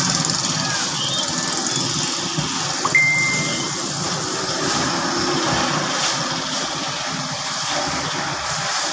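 An engine running steadily, with a high hiss over it and a short high tone held for about a second, three seconds in.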